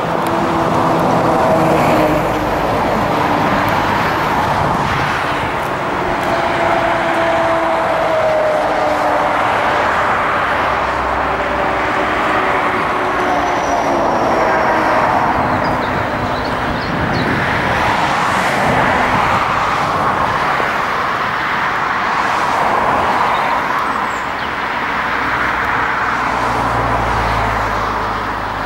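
Steady road traffic, cars and lorries passing one after another, the tyre and engine noise swelling and fading every few seconds.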